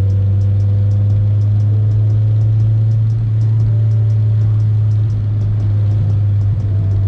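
Honda Civic EK coupe's engine and exhaust droning steadily from inside the cabin while cruising at a constant speed, with a slight dip in level about five seconds in.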